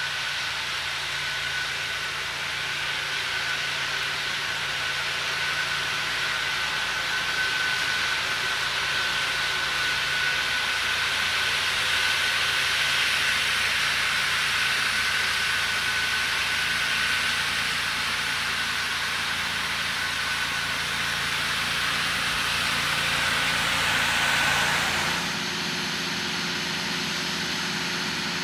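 Ventrac ET200 turbine blower on a Ventrac tractor running at work: a steady rush of air with a high, steady whine over the engine. Near the end the sound changes suddenly to a quieter, lower machine hum.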